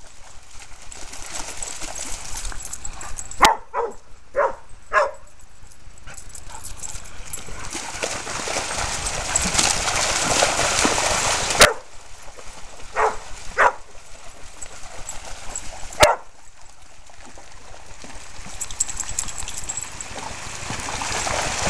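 Dog barking in short calls: four quick barks, then two more about ten seconds later, over steady background noise.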